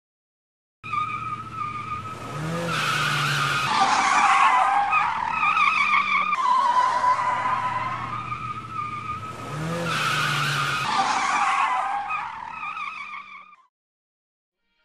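A car drifting: tyres squealing over a revving engine, in two long swells. It starts about a second in and fades out shortly before the end.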